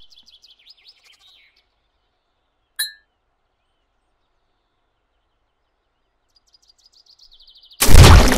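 Faint birds chirping in near quiet, with a single short bright ting about three seconds in. Near the end comes a loud, sudden crushing impact: a boot stomping down on the snail.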